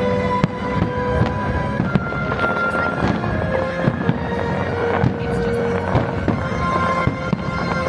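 Fireworks display: fireworks bursting in many sharp bangs, one after another, over loud show music with held notes.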